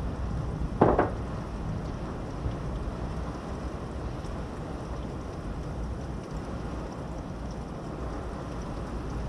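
Steady thunderstorm rain and wind noise, with one short, sharp crack about a second in.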